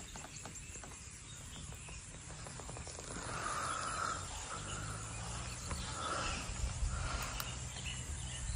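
Rural outdoor ambience: insects droning steadily at a high pitch, with a few short mid-pitched animal calls starting about three seconds in.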